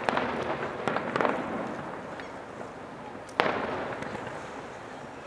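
Aerial firework shells bursting: several bangs in the first second or so and a loud single bang about three and a half seconds in, each followed by a long trailing echo.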